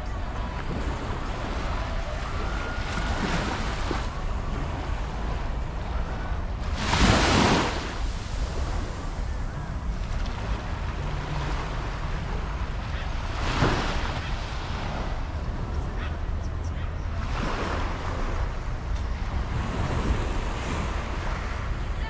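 Surf breaking on the beach, waves washing in every few seconds, the biggest break about seven seconds in. Wind rumbles on the microphone throughout.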